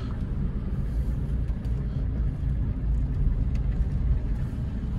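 Engine and road noise of a car being driven, heard from inside the cab: a steady low rumble.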